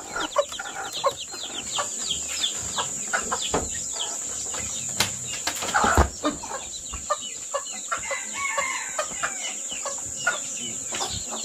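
A basketful of newly hatched chicks peeping rapidly and continuously, with chickens clucking, over a steady high hiss. A single knock sounds about halfway through.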